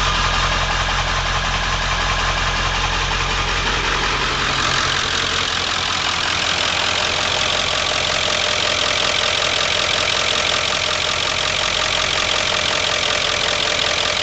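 1997 Ford Power Stroke 7.3-litre V8 turbo-diesel running at idle, an idle the owner finds rough at almost every start-up. About five seconds in the sound changes: the low rumble drops away and a higher, steadier running sound takes over.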